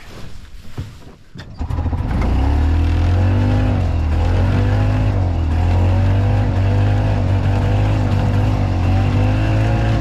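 Harley-Davidson golf car engine starting about a second and a half in, then running steadily as the cart drives off, its pitch rising and falling a little with the throttle. A few clicks come before it starts.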